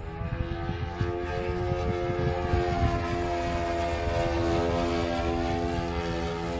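Engine and propeller of a Sbach 342 radio-controlled model aerobatic plane running at a steady, high throttle as it flies past. It grows louder over the first couple of seconds as the plane comes closer, then holds at an even pitch.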